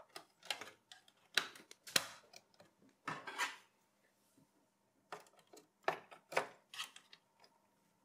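Desktop PC parts being handled: about eight separate clicks and clatters of hard plastic and metal, as memory modules (DIMMs) are fitted into their motherboard slots. A faint steady low hum lies underneath.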